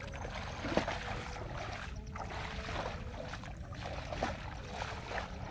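Bare feet wading through shallow water and mud, with scattered small splashes and squelches. Steady wind rumbles on the microphone underneath.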